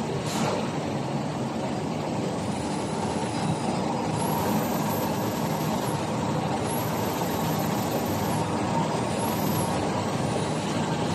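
High-speed flexographic printing press running with a steady, dense mechanical noise. A single sharp click about a third of a second in.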